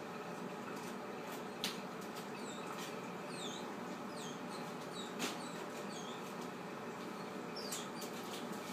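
Chocolate Australian labradoodle puppy whimpering in short, high squeaks that fall in pitch, several in two clusters, over a steady room hum. Two sharp clicks come about a second and a half in and again around five seconds.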